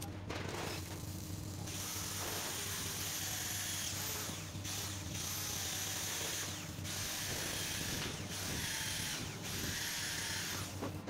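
A power tool running in several stretches, each broken by a short pause, with a strong high hiss and a faint whine over a low steady hum.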